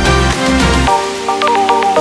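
Background electronic music; the deep bass beat drops out about a second in, leaving a lighter melody of short notes.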